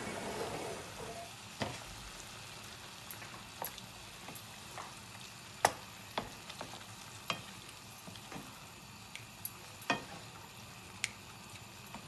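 Chicken, yogurt and spices sizzling in oil in a metal frying pan while a wooden spatula stirs and mixes them. A steady sizzle runs under scattered sharp clicks and scrapes of the spatula against the pan.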